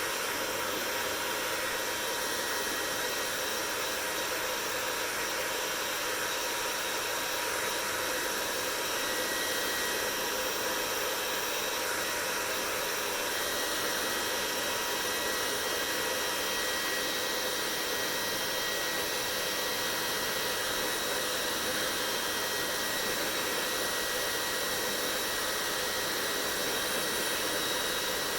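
Hair dryer running steadily: an even rush of blown air with a faint high motor whine.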